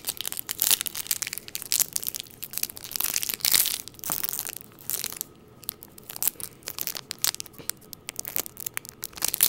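Foil wrapper of a Pokémon trading-card booster pack being torn open and crinkled in the hands, in irregular crackling rustles with a couple of brief lulls.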